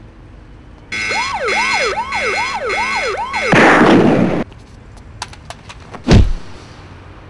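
A siren-like electronic whoop, each call rising quickly and falling, repeating about twice a second for two and a half seconds. It is cut off by a loud burst of noise lasting about a second. Then come a few sharp clicks and a heavy thump about six seconds in.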